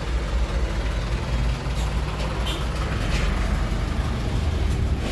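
Road traffic in a jam close by: a steady low rumble of vehicle engines crawling past.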